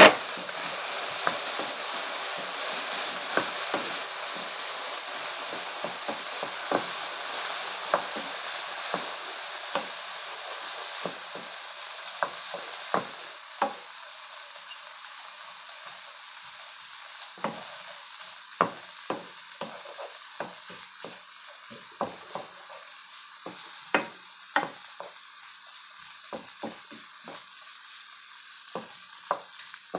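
Wooden spoon stirring peas, carrots and scrambled egg frying in oil in a speckled nonstick frying pan, the spoon clacking irregularly against the pan. A steady sizzle fades over the first half and drops away sharply about halfway through, leaving mostly the clacks of the spoon.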